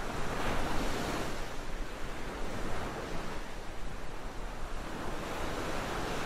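Ocean surf breaking on a rocky shore: a steady rush of wave noise that swells and ebbs, loudest about a second in and again around three seconds.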